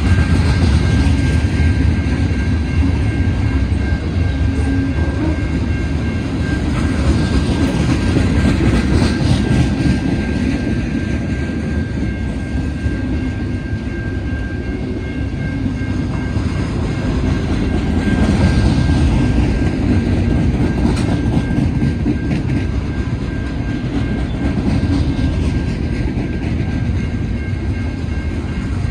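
Freight cars of a CN manifest train rolling past: a steady, loud rumble of steel wheels on rail.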